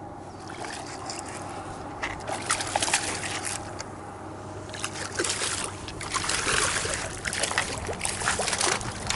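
Water splashing and sloshing, with a run of short splashes that grows louder about five seconds in, as a hooked fish thrashes at the surface while it is reeled in.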